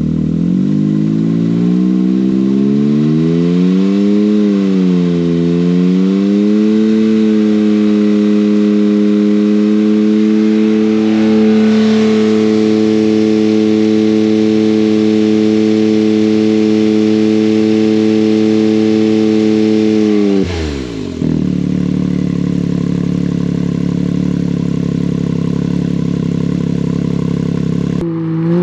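Can-Am X3's turbocharged three-cylinder engine with an aftermarket side exhaust, revved up and down a couple of times, then held at steady high revs for about thirteen seconds. It then drops sharply back to idle, and the revs fall once more at the very end.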